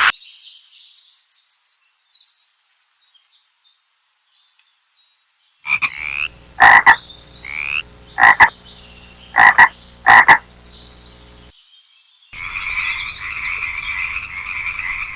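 Frogs calling. Faint high calls at first, then four loud, short croaks about a second apart from around six seconds in, then a dense, steady frog chorus from about twelve seconds.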